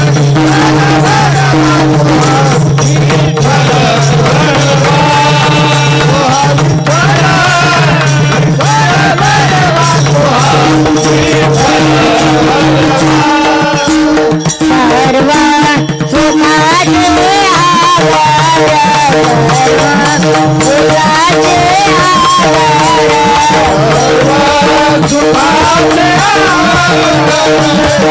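Marathi devotional kirtan music: a winding melodic line over a steady drone, with rhythmic percussion throughout. The deepest drone notes drop out about halfway through and return near the end.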